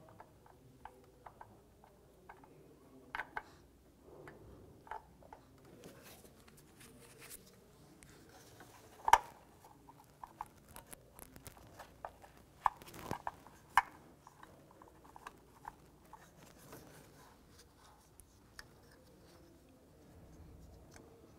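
Scattered light clicks and taps over faint handling noise as a camshaft position sensor is worked by hand into its mounting hole deep in the engine bay. The sharpest click comes about nine seconds in, and a short run of clicks follows around twelve to fourteen seconds.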